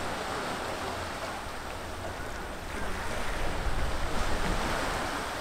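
Sea water washing against the sandstone cliffs and rocks below, with wind rumbling on the microphone. The wash swells about three seconds in and eases off near the end.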